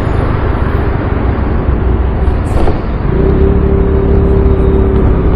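Scooter riding noise picked up by a helmet-mounted camera: wind rushing over the microphone with the engine running underneath. About three seconds in, a steady hum joins the rush.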